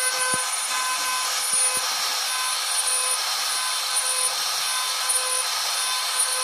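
CNC router spindle carving wood with a small router bit: a steady whine with overtones over the hiss of the bit cutting, with a few faint low knocks in the first two seconds.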